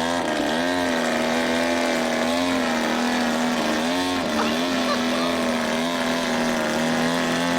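Engine and propeller of a large radio-controlled airplane droning in flight. The pitch holds mostly steady, dipping and rising briefly near the start and again about four seconds in as the plane manoeuvres.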